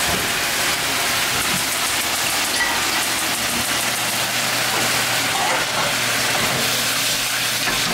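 Octopus, zucchini and carrot stir-frying in a pan over high heat: a steady sizzle, with a steady low hum underneath from about a second in.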